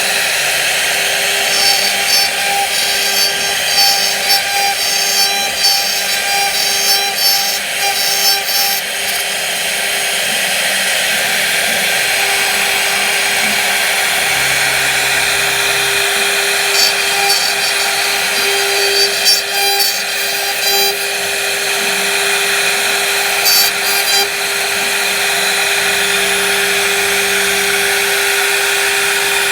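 Electric power tool running with a steady high whine while cutting wood, with stretches of rougher, crackling cutting noise, the first for several seconds from near the start and another after the middle.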